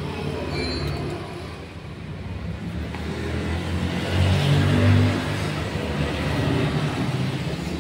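A motor vehicle's engine running past on the road, a low hum that swells to its loudest about four to five seconds in and then eases a little.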